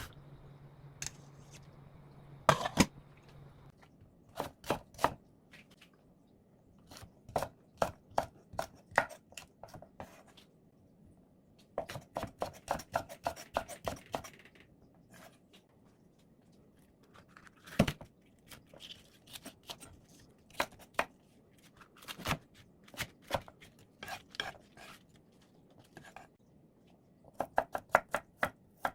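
A knife cutting on a cutting board in short runs of quick strokes with pauses between them, as when slicing boiled beef shank for suyuk.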